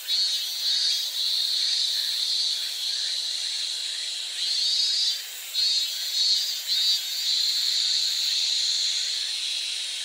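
Cicada singing: a steady, shrill, hiss-like buzz that dips briefly a few times about halfway through, then holds steady.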